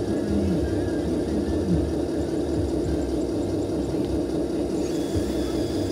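Radio-controlled hydraulic excavator working, its pump and motors giving a steady mechanical hum and whir, with a couple of brief pitch dips near the start as it takes load.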